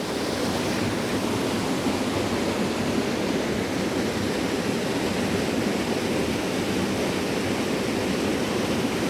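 Waterfall and rushing creek water in a rocky gorge, a loud, steady rush with no let-up.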